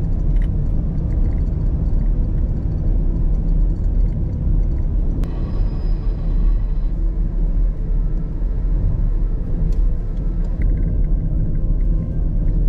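A steady low rumble, with a few faint high tones about halfway through.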